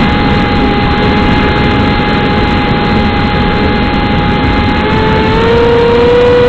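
Whine of a radio-controlled model plane's motor and propeller, heard from a camera on board over heavy wind rush. The pitch holds steady, then rises about five seconds in as the motor speeds up.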